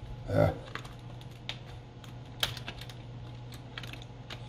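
Irregular plastic clicks and snaps as a laptop's screen bezel is pried away from the display, its clips and adhesive letting go. A short duller thump comes about half a second in.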